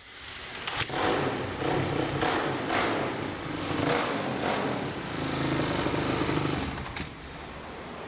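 Honda CRF450's single-cylinder four-stroke engine starting and being revved in bursts, then settling. About seven seconds in it cuts out abruptly as the newly installed kill switch is pressed to test it.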